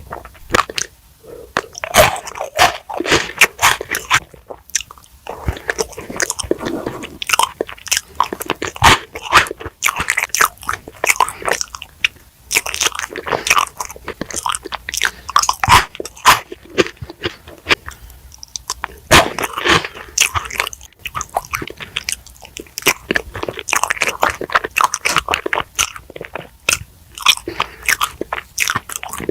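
A person eating chocolate cake, ice cream and Maltesers close to an ASMR microphone: a steady run of irregular short, sharp bite and chewing sounds.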